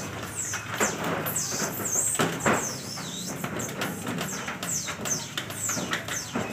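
Small birds chirping repeatedly in quick, high, mostly falling notes, with a few sharp knocks, the loudest about two and a half seconds in.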